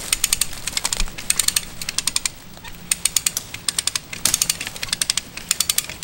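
Hand-operated cable come-along being ratcheted under load: about eight short runs of quick pawl clicks, one run for each stroke of the handle, as the cable is winched in.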